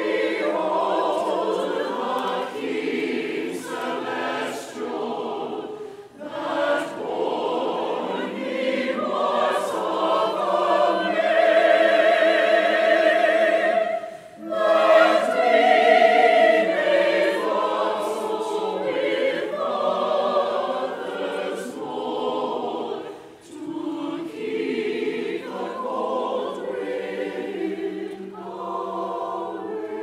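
Mixed church choir singing a slow hymn, with brief breaks between phrases about six, fourteen and twenty-three seconds in.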